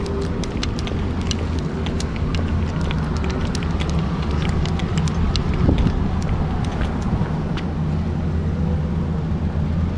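Steady low hum of road traffic on a city street, with many small sharp clicks scattered throughout.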